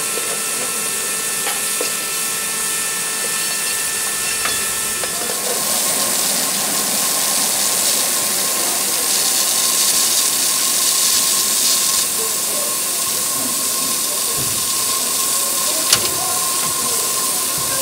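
Steady hiss of steam escaping from a 5-inch gauge live steam locomotive standing in steam, with a faint steady whistle-like tone joining about five seconds in.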